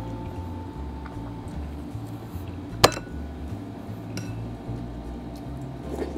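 A metal spoon clinking against a glass bowl: one sharp clink about three seconds in, and a fainter one about a second later.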